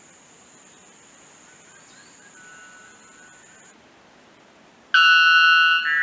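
Male white bellbird giving its loud two-part song about five seconds in: a sudden ringing note with many overtones, held for most of a second and running straight into a shorter second note.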